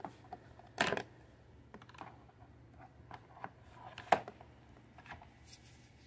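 Scattered plastic clicks and knocks from the parts of a new upright vacuum cleaner being handled and fitted together by hand, with a scraping knock about a second in and the sharpest click about four seconds in.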